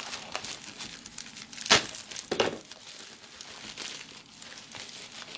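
Packing material crinkling and rustling as a shipping package is torn open and unwrapped by hand, with two sharper, louder crackles about two seconds in.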